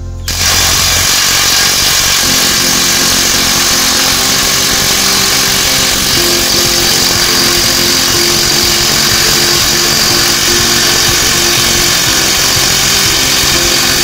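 Mailtank 360 N·m cordless impact wrench kicking in a moment in and hammering steadily at full speed against a nut tightened to 24 kg. It is still able to break the nut loose, but it takes a long time.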